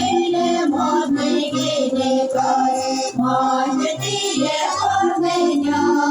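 Sami folk ensemble singing together to a steady instrumental accompaniment, with a bass that pulses in an even rhythm under the voices.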